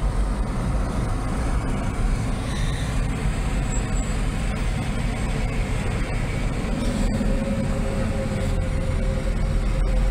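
Steady road noise inside a moving car on a highway, a low rumble of tyres and engine. About two thirds of the way through a steady engine hum joins as a heavy truck comes alongside.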